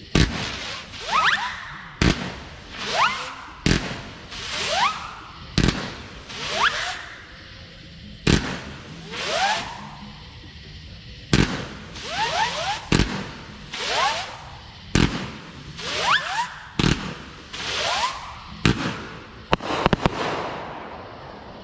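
200-gram consumer fireworks cake firing: sharp launch thumps about every two seconds, each followed by the rising whistle of spinning hummers and a hissing swell as the effects burst. A quick cluster of shots near the end marks the finale.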